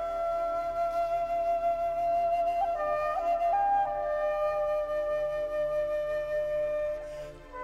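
Background score: a flute playing a slow melody of long held notes, over soft lower accompaniment.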